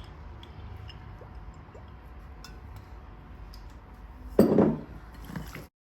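Quiet clinks and handling of a bowl as chicken wings are mixed with olive oil and seasoning. A louder short sound comes about four and a half seconds in, and the sound cuts off abruptly just before the end.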